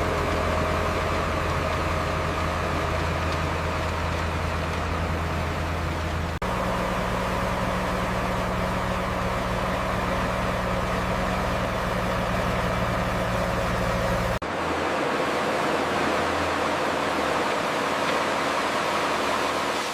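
Heavy construction machinery running with a steady engine drone, changing suddenly twice, about six and fourteen seconds in, as one clip of machine sound gives way to another.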